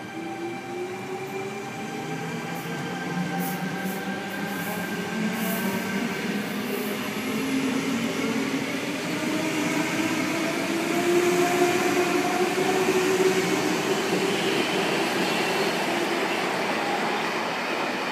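CityRail double-deck electric suburban train pulling out of the station, with wheel and rail noise and a motor whine that rises in pitch as it speeds up. It grows louder as the carriages pass, is loudest about two-thirds of the way through, and eases off as the last car leaves.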